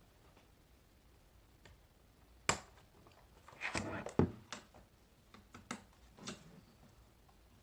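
Sharp plastic clicks and knocks of keyboard parts being handled and fitted back together during reassembly. They come irregularly, a few single clicks with a short cluster in the middle.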